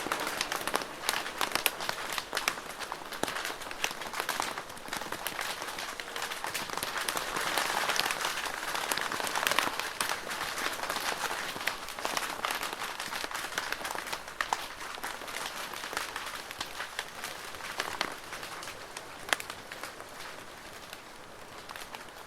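Rain falling on a plastic roof: a dense patter of drops with many sharp individual ticks, swelling a little in the middle and easing toward the end.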